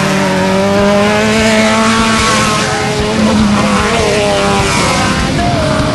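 Off-road desert race vehicle engine running hard: a loud, steady engine note that wavers slightly in pitch and dips briefly twice, over a constant hiss of wind and dirt.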